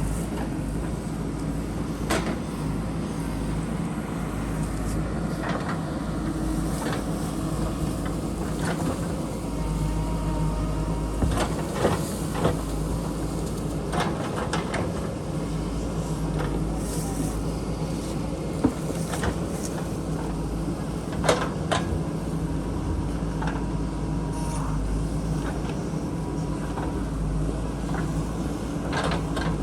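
JCB backhoe loader's diesel engine running steadily while it digs, with a handful of sharp knocks and clanks scattered through, from the bucket and arm working against rock and soil.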